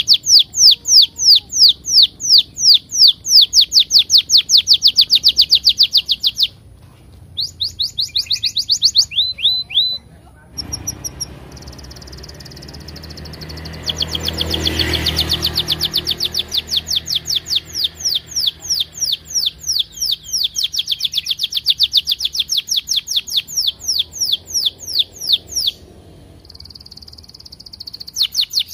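Red-orange domestic canary singing a long rolling song: fast runs of repeated down-slurred whistles, several a second, broken by short pauses and two held steady notes. About halfway through, a passing motorbike's engine hum swells and fades under the song.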